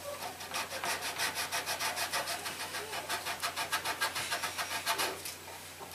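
Pink nail file (emery board) rubbed over a plastic model-ship hull in quick, even back-and-forth strokes, several a second, lightly sanding molded lettering off the plastic. The strokes die away about five seconds in.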